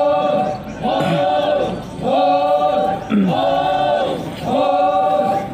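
A troupe of Naga performers chanting in unison: a short phrase repeated about once a second, each note held and then falling away in pitch, with brief breaths between phrases.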